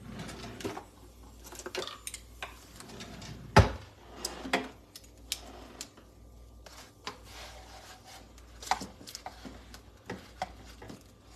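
Cooking utensils handled at a frying pan: a spatula and metal tongs clicking, tapping and scraping against a nonstick pan in an irregular run, with one sharp knock about three and a half seconds in.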